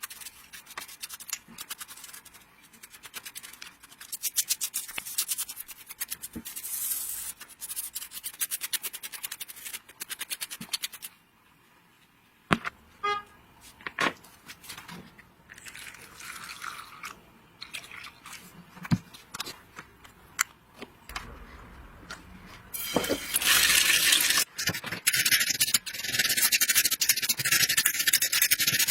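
Rapid scrubbing and scraping strokes on a hard part, then a loud steady hiss that starts about three-quarters of the way through, with a few clicks between.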